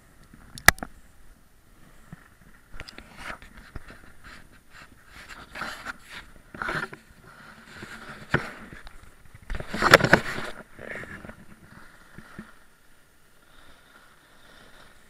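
Handling noise from a camera on a moving dog sled as it is turned from the dog team round to the riders: irregular scrapes and sharp knocks, the loudest cluster about ten seconds in, over a faint steady hiss.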